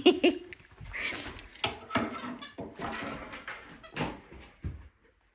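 Irregular knocks, clicks and handling noises, with a brief pitched vocal sound at the start. The sound cuts off abruptly about five seconds in.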